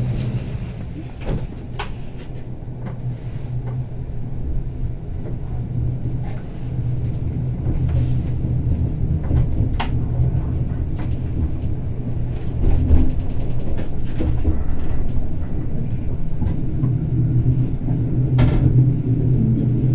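Bernina Express passenger train running, heard from inside the carriage: a steady low rumble that gradually grows louder, with a few sharp clicks and knocks scattered through it.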